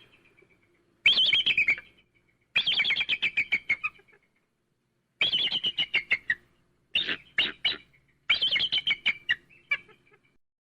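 Eagle giving high, chattering calls: five bouts of rapid piping notes, each a second or so long and falling slightly in pitch, with short pauses between.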